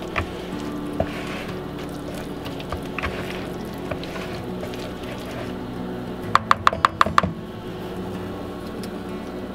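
A spoon stirring and folding thick pumpkin pie filling in a plastic bowl, with soft wet squishing and scraping. About six seconds in comes a quick run of about seven sharp taps of the spoon, over roughly one second.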